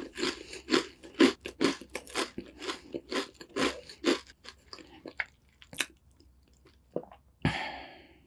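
A person chewing a crunchy cookie with the mouth closed: a steady run of crunching chews, about two or three a second, that fade out over the first five seconds. A few small mouth clicks follow, then one short, louder mouth sound near the end.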